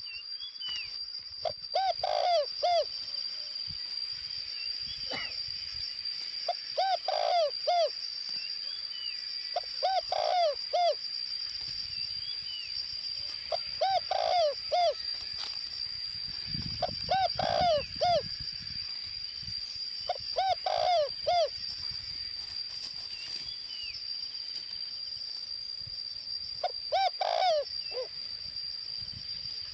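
Spotted dove cooing its short three-to-four-note phrase over and over, about every three to four seconds, with a longer pause near the end: the standard call wanted from a decoy dove. A steady high-pitched whine and faint chirps of other birds run underneath.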